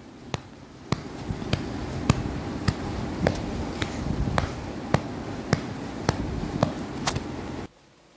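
Pot of minced meat and potatoes simmering on the stove after a splash of water, a steady cooking hiss with a sharp tick about twice a second. It cuts off suddenly near the end.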